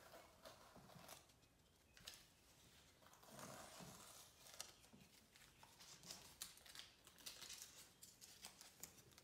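Near silence with faint, scattered scratchy rustles: a small paintbrush working paint onto a stretched canvas.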